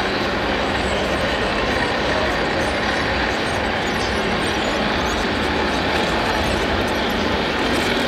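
Steady, even din with no distinct knocks or pauses: the background noise of a busy indoor hall, with a radio-controlled truck driving slowly over a dirt track.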